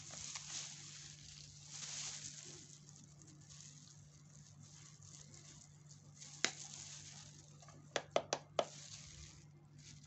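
Faint rustling and hiss over a steady low hum, with one sharp click about six and a half seconds in and a quick run of four clicks around eight seconds: small handling sounds of containers being picked up and opened.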